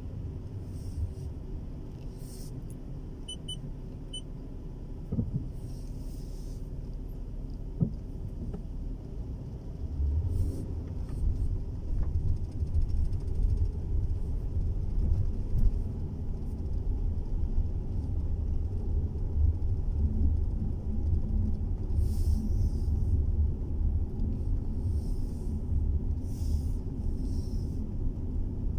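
Low rumble of a car driving, heard from inside the cabin: engine and tyre noise on a wet road, growing louder about ten seconds in, with a few brief hisses.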